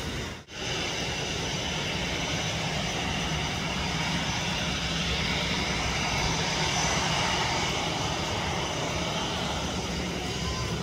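Jet airliner engines running: a steady rush with several high whining tones, swelling slightly toward the middle. There is a brief gap about half a second in.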